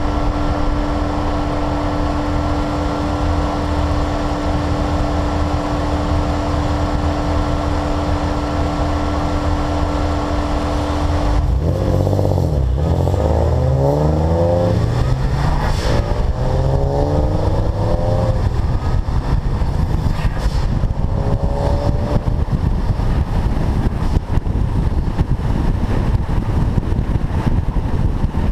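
Car engine holding a steady drone with a thin steady whine, then about 11 seconds in it revs hard, its pitch climbing and dropping several times through gear changes, before settling back to a steady drone.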